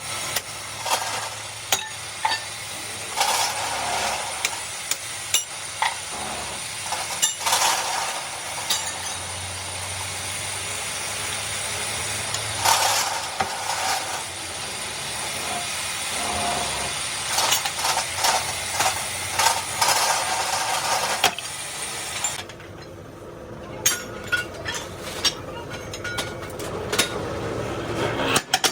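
Sharp metal-on-metal clinks and hammer taps on steel parts over a steady machine noise, which drops away about 22 seconds in, leaving only the clinks.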